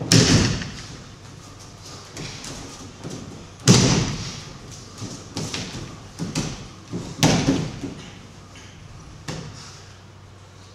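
Aikido partners taking breakfalls onto tatami mats: three heavy thuds about three and a half seconds apart, with lighter thumps and shuffling between them.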